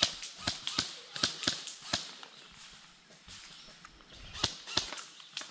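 Airsoft guns firing in an exchange of shots: a string of sharp, irregular snaps, several about a quarter-second apart in the first two seconds and a few more near the end.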